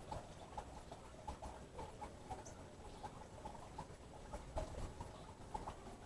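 Green parakeets feeding, with faint, irregular soft clicks and chitters, several a second.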